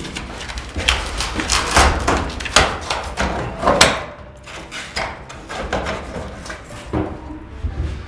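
Irregular knocks, clatter and scrapes of things being handled in a stainless-steel sink and on its counter. The sound is busiest in the first half, eases for a moment, then picks up again with a few sharper knocks.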